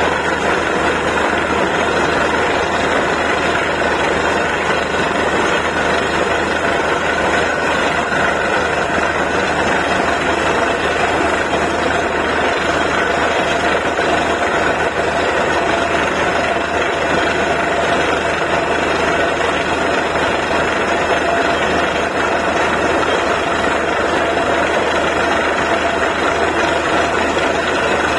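Engine of a borewell drilling rig running steadily at a constant pitch.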